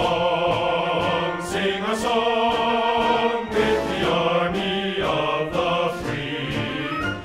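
Background music: a choir singing long, sustained chant-like notes.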